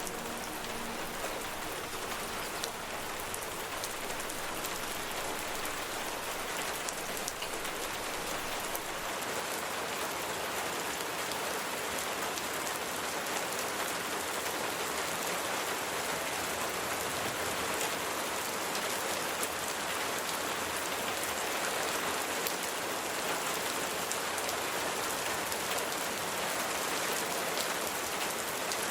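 Rain falling steadily, an even, unbroken sound of many drops.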